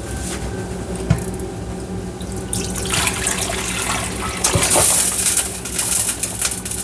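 Cooked oxtail and its liquid being poured from one pot into another: a splashing pour that grows much louder about two and a half seconds in, with a couple of clanks of metal pots.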